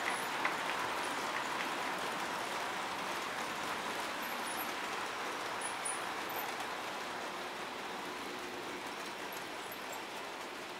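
H0-scale model trains running over the layout's track, a steady whirr of wheels and motors that slowly fades, with a few sharp clicks near the start.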